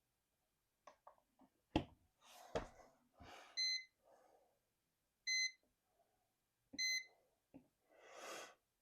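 Three short electronic beeps, evenly spaced about a second and a half apart, from a digital test meter, among a few sharp clicks and knocks of handling and button presses.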